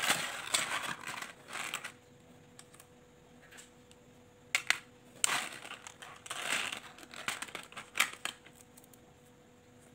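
A plastic bead-kit tray and its wrapping being handled: crinkling plastic for the first two seconds, then a few sharp plastic clicks and short rustles.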